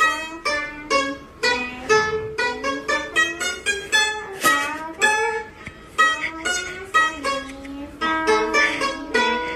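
Background music played on a plucked string instrument: a quick, bright run of picked notes, several a second.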